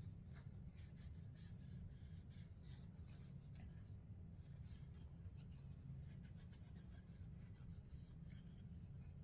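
Faint rubbing and scratching of an oiled paper towel wiping down a Glock pistol barrel, over a low steady hum.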